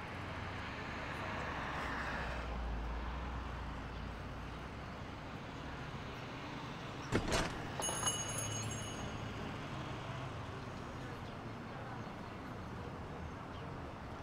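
Outdoor street ambience with a low vehicle rumble in the first few seconds. About seven seconds in, a shop's glass front door knocks as it opens, followed by a brief high jingle.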